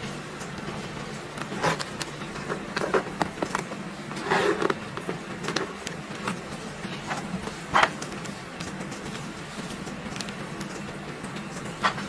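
Handling noises from a leather handbag and its strap: scattered short clicks, taps and rustles of leather and metal clasp hardware, over a steady low hum.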